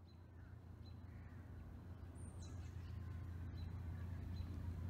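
Faint bird calls, one of them a falling whistle about halfway through, over a low steady rumble.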